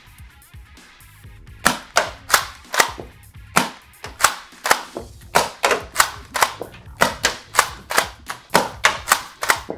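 SPAS-12-replica pump-action foam dart blaster being pumped and fired repeatedly: a rapid run of sharp plastic clacks, roughly two to three a second, starting about one and a half seconds in.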